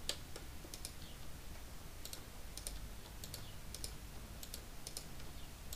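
Light, irregular clicks of a computer keyboard and mouse, often in quick pairs, over a faint steady low hum.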